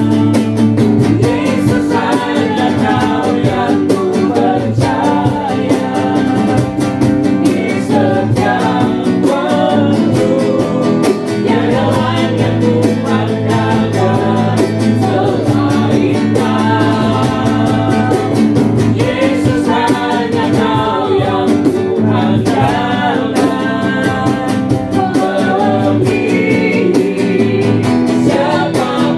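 A song with a singing voice over guitar accompaniment, playing steadily.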